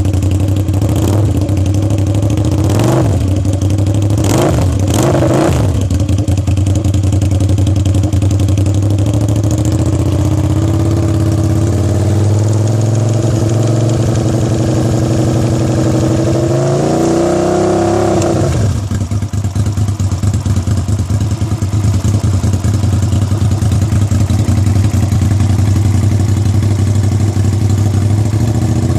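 Suzuki SV650's V-twin engine idling, blipped several times in the first few seconds and revved up and back down about two-thirds of the way through. The owner is recording it for an abnormal noise it makes.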